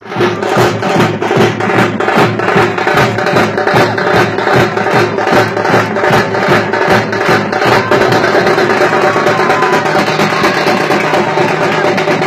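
A group of thamate frame drums beaten together in a fast, driving rhythm of about four strokes a second. About eight seconds in the strokes run together into a denser roll.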